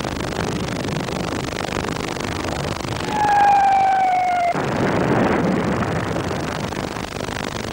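Whistle of an incoming artillery shell falling slowly in pitch for about a second and a half, cutting off suddenly into a short burst of noise as it lands. All of it sits over a steady hiss.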